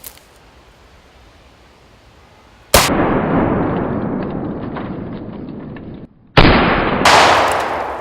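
Two loud blasts about three and a half seconds apart, each sudden and followed by a long fading rumble.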